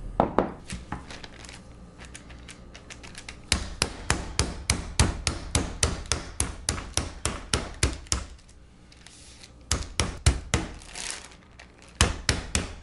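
Meat mallet pounding a raw chicken breast in a plastic bag on a wooden cutting board, flattening it: lighter taps at first, then runs of solid blows at about three a second with short pauses between.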